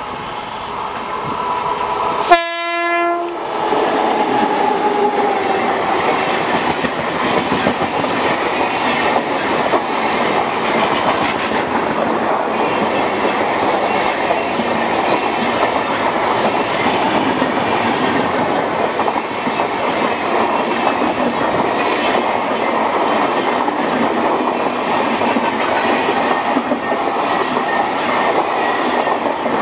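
Indian Railways WAP-7 electric locomotive sounds one short, loud horn blast about two seconds in as it approaches. It then passes at speed, followed by the steady rumble and clickety-clack of LHB passenger coaches rolling by.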